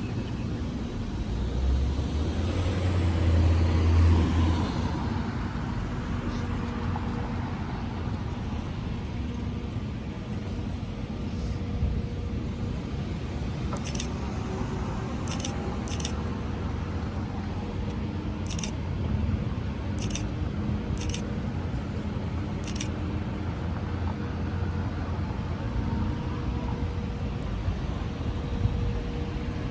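Road traffic noise, with a vehicle rumbling past about two to five seconds in. Several short, sharp clicks sound in the second half.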